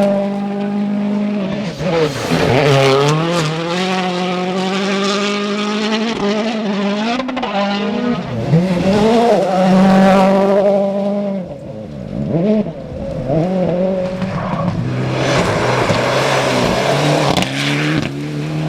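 Rally cars at full attack on a stage, their engines revving hard, the note rising and falling again and again through gear shifts and lifts. There is some tyre noise, and the sound dips briefly about twelve seconds in.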